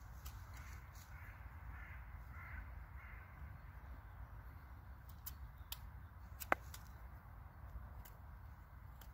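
A knife whittling a small wooden pin, the blade making a few sharp clicks on the wood from about five seconds in, the loudest at about six and a half seconds. Earlier, a bird calls faintly about five times in quick succession.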